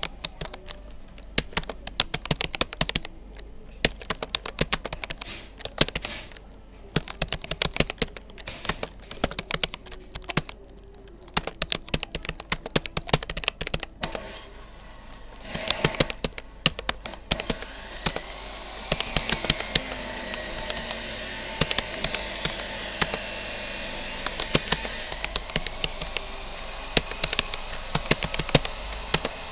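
Fast, irregular key clicks of someone touch-typing on a Rapoo computer keyboard, with brief pauses between bursts. A steady rushing background noise rises under the typing about two-thirds of the way in, then eases off.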